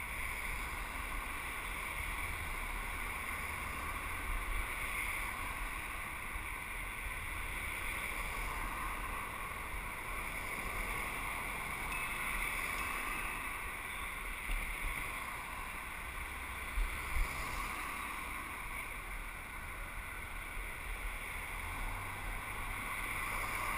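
Steady wind and rolling road noise on a bicycle-borne camera's microphone while riding along a city street, with a deep rumble and a couple of brief thumps about two-thirds of the way through.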